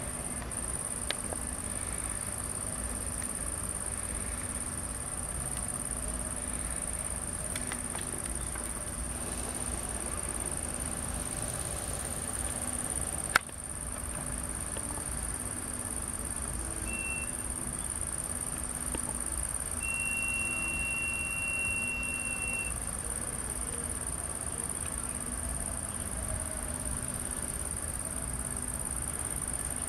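Steady high-pitched chirring of crickets on a summer night over a faint low rumble. A sharp click sounds about halfway through, and a short steady tone is followed by a longer one lasting about three seconds, two-thirds of the way in.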